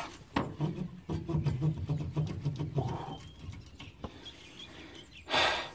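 A man's low, wordless voice, a held hum or effort sound lasting about two and a half seconds, made while he pushes a new rear shock absorber onto its lower mounting stud. A short burst of noise follows near the end.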